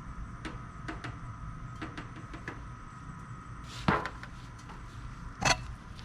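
Two sharp knocks about a second and a half apart, with a few light clicks before them, over a steady low hum.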